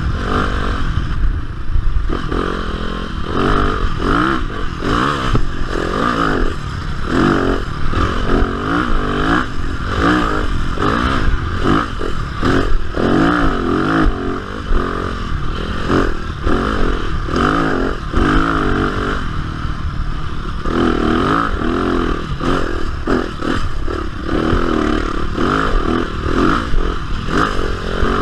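Yamaha dirt bike engine under way on a trail, revving up and dropping back over and over as the rider works the throttle and gears.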